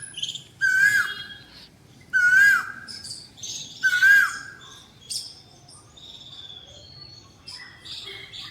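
Asian koel calling: three loud, clear calls about a second and a half apart in the first half, then stopping. Other birds chirp softly throughout.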